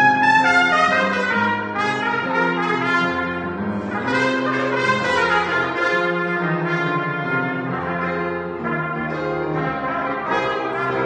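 Two trumpets playing a melody together over piano accompaniment, the notes moving steadily with sustained lower notes underneath.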